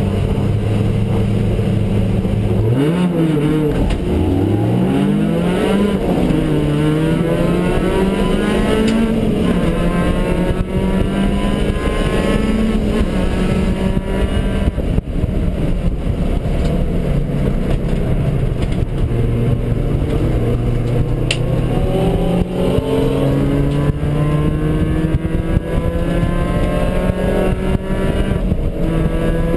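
Race car engine heard from inside the cockpit: held at steady revs, then launched about three seconds in, revs climbing and dropping through several quick upshifts. It then runs at speed, the revs rising and falling, with a long climb near the end.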